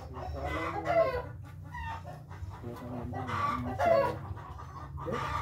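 Chickens clucking, with a rooster crowing, over a steady low rumble.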